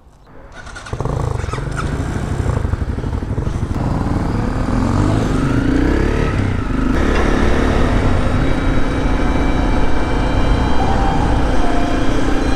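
Honda CRF250L's single-cylinder four-stroke engine pulling away about a second in and rising in pitch as it accelerates, then running at a steady cruise from about seven seconds in.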